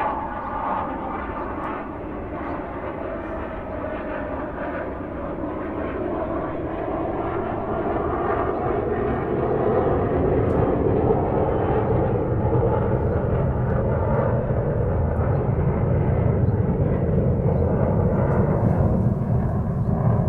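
Airliner cabin noise: a steady rush of airflow and engine drone heard inside the cabin. It grows louder and deeper through the first half and then holds steady.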